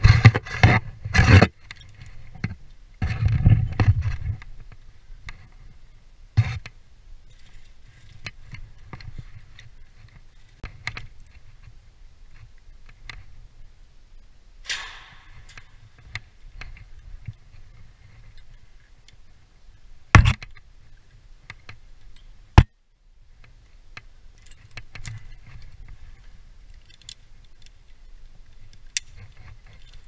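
Rope-access hardware being handled: metal carabiners and a descender clinking and jangling, and rope scraping through them. There is loud handling noise in the first few seconds, then scattered sharp clicks over a low rumble, with two loud clicks about twenty seconds in.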